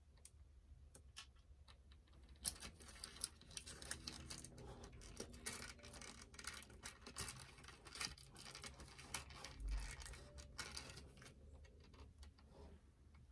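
Faint handling noises of small plastic doll accessories and their packaging: irregular light clicks, taps and rustling, busiest through the middle and thinning out near the end.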